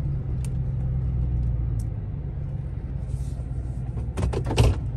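Chevrolet Silverado pickup's engine running at low speed, heard from inside the cab as a steady low rumble. A short run of sharp clicks and knocks comes about four seconds in.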